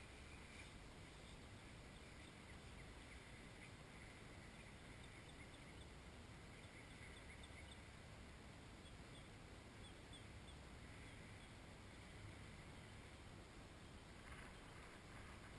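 Near silence: faint outdoor background hiss with a scatter of faint, short bird chirps.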